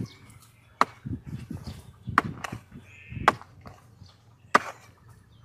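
A long-handled hoe chopping into the ground while digging a hole: about five sharp strikes, roughly one a second, with soft scraping of soil between them.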